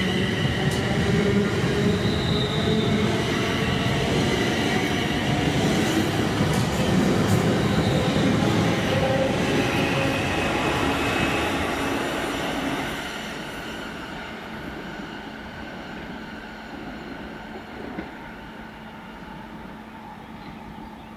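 Class 350 Desiro electric multiple unit moving away along the platform, its traction motors whining in several tones that rise in pitch over the first few seconds as it gathers speed. The train noise fades steadily after about twelve seconds as it leaves.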